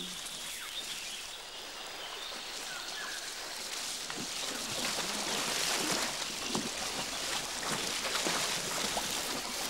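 Water in a shallow stream rushing, with irregular splashes and sloshing as elephants wade through it. It grows somewhat louder about five seconds in.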